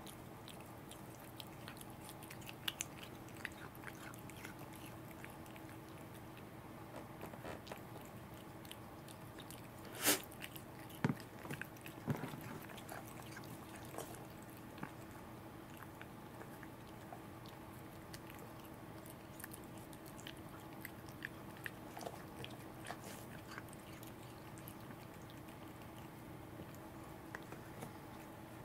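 A cat eating salmon from fingers: soft chewing and lip-licking with scattered small clicks, and one sharper click about ten seconds in, over a faint steady hum.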